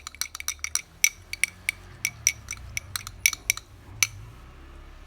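Metal spoon stirring instant coffee in a glass, clinking rapidly against the sides about five times a second, with a bright ringing tone on each strike; the stirring stops about four seconds in.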